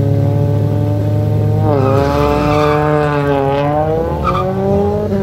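Ford Escort drag car's engine revving at the start line. It is held at a steady high rev for the first couple of seconds, then drops sharply in pitch, sags and climbs again as the throttle is worked.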